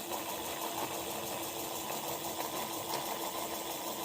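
A small electric motor whirring steadily.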